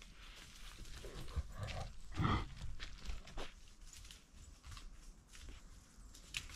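A mini shar pei's paws padding and rustling over dry fallen leaves, picked up close from its back, with scattered small crackles and one louder rustle about two seconds in.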